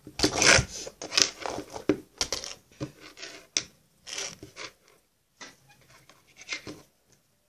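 A hairbrush drawn through a Barbie doll's long synthetic hair, with the hair being handled: a run of short, irregular rustling swishes, several a second, strongest in the first few seconds and fewer and fainter toward the end.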